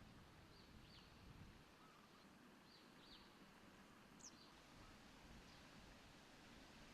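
Near silence: faint steady background hiss with a few faint, short bird chirps scattered through it.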